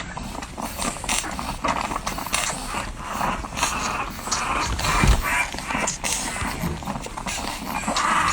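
Newborn French Bulldog puppies suckling at the teat: a continuous run of quick, wet clicking and smacking sounds, with one low thump about five seconds in.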